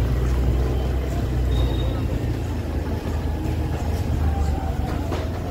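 Low rumble of a motor scooter riding slowly along a busy street, with the chatter of people walking by.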